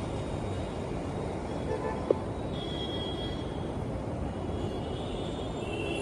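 Steady low rumble of a vehicle or road traffic, with a single sharp click about two seconds in.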